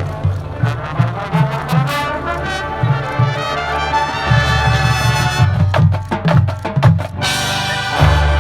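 Marching band playing its show music: brass over drums, with heavy low brass. A run of sharp drum hits comes in about two-thirds of the way through.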